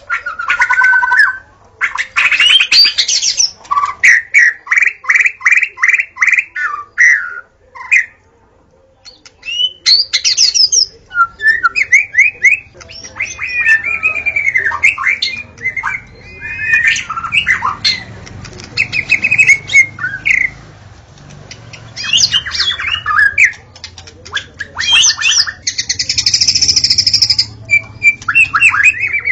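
White-rumped shama singing loudly and continuously: a varied stream of whistled glides, rapid repeated notes and harsher chattering phrases, with a short pause about eight seconds in.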